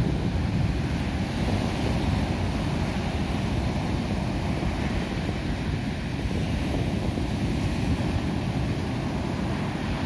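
Rough surf breaking and washing up a sandy beach, a steady rushing noise, with wind buffeting the microphone as a low rumble underneath.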